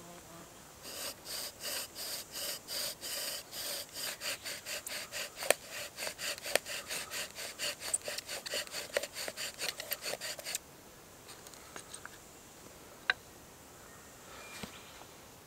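Bow drill in use: a shoelace-strung bow sawing back and forth spins a grass-tree (Xanthorrhoea) flower-spike spindle in its hearth board, a rhythmic rasping grind that speeds up from about two to about four strokes a second as he works up an ember. The drilling stops suddenly about ten and a half seconds in, and a single click follows a couple of seconds later.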